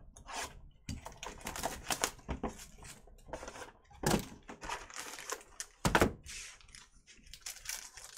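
Hands handling and opening a cardboard trading-card hobby box on a table: rustling and scraping, with two loud thuds about four and six seconds in.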